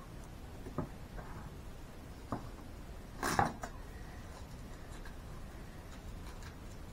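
Handling of a roll of tape and a strip of cut tape on a tabletop: two faint taps, then a louder short scraping noise about three seconds in, and a few faint ticks.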